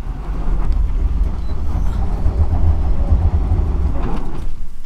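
2022 Infiniti QX80's 5.6-litre V8 working hard in four-low up a steep dirt hill, a deep rumble with a rough scrabbling wash over it. The stock street tires are failing to find grip. The noise eases off near the end.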